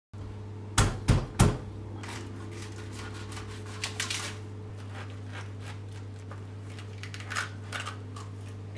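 Large kitchen knife cutting a pineapple on a plastic cutting board: three sharp knocks about a second in, then quieter scattered knife clicks and scrapes, over a steady low hum.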